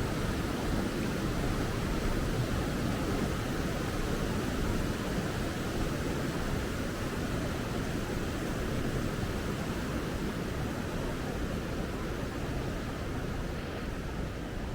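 Steady rushing of the Tomebamba River, easing off a little near the end.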